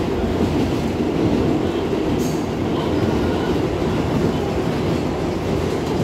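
R188 subway car running along the track, heard from inside the car: a steady rumble of wheels on rail, with a brief sharp high sound about two seconds in.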